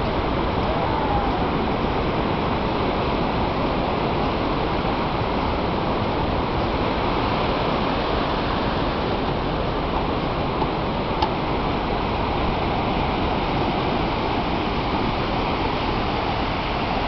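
Steady rushing noise with no clear pitch, unbroken throughout, with a couple of faint clicks about ten and eleven seconds in.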